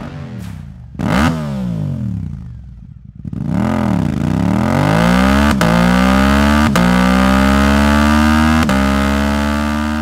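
Suzuki GSX-8R's 776 cc 270-degree parallel-twin with an Akrapovic exhaust, revving. The revs fall, a sharp blip comes about a second in and another rise and fall around four seconds, then a long pull starts about four and a half seconds in, its pitch climbing slowly.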